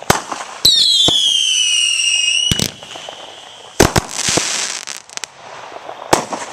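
Fireworks going off, with sharp bangs. About half a second in, a shrill whistle falls slowly in pitch for two seconds and ends in a bang. More bangs follow near four seconds, with a short crackling hiss, and again near six seconds.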